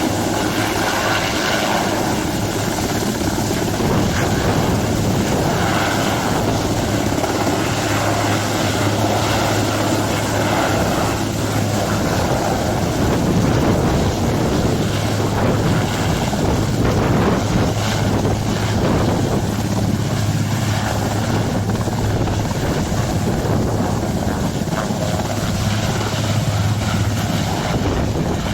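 Helicopter running close by, its rotor and engine making a loud, steady noise with a constant low hum underneath.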